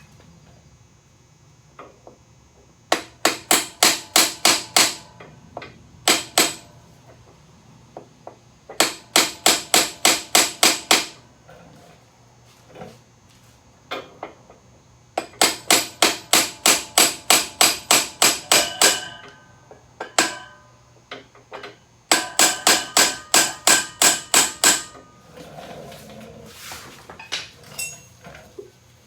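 A hammer striking a metal rod held against the end of a Harley-Davidson touring bike's rear axle, driving the axle out of the wheel. The blows come in four quick runs of about eight to fourteen ringing metal-on-metal strikes each, about four or five a second, with short pauses between runs.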